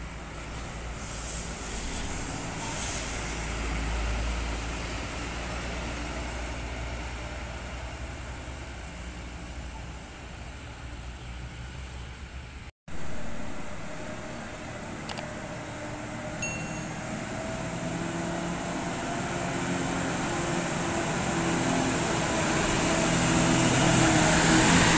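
Diesel coach buses driving past. The first coach's engine rumbles low, the sound breaks off in a brief dropout about halfway, then a Mercedes-Benz coach's engine grows steadily louder as it pulls close near the end.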